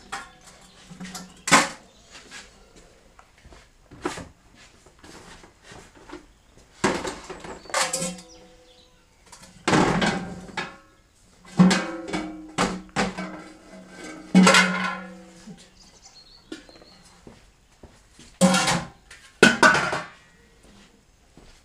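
Cooked potatoes tumbling out of a large plastic pot into plastic buckets, with repeated hollow knocks and clatters as the pot and buckets bump together, several of them ringing briefly.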